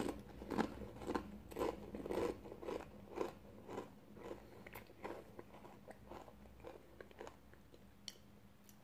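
Someone chewing a Doritos Flamin' Hot Tangy Cheese tortilla chip with the mouth closed: crisp crunches about twice a second that grow softer near the end.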